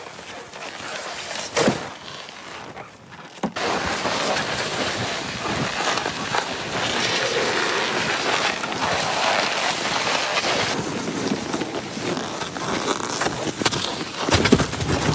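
Loaded plastic ice-fishing sled dragged over snow and ice: a steady scraping rush that starts about three and a half seconds in, with a few knocks.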